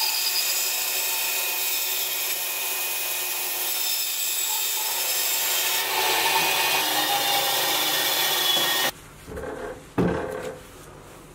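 Band saw blade cutting through a snakewood log, a steady hiss that stops abruptly about nine seconds in as the cut finishes. A couple of sharp knocks follow.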